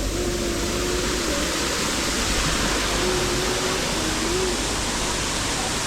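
Waterfall water rushing right at the camera, a loud, steady roar of falling water that cuts off suddenly near the end.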